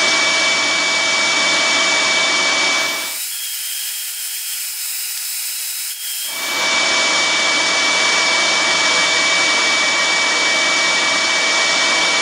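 Rikon 14-inch band saw running and cutting green olive wood: a steady whirring hiss with a thin high whine. About three seconds in, for roughly three seconds, it gives way to a quieter, thinner hiss, then returns.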